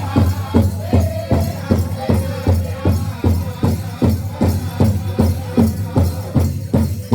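Powwow drum group singing a grand entry song in chorus over a steady big-drum beat of about three strokes a second.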